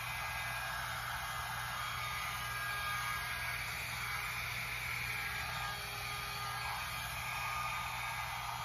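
InfinitiPro by Conair hot air brush (a blow dryer brush) running steadily: an even rush of blown air with a faint motor whine.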